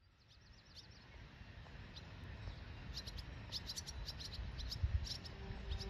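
Small songbirds chirping: many short, high, quick notes, some in fast falling runs, over a low outdoor rumble. The sound fades in at the start.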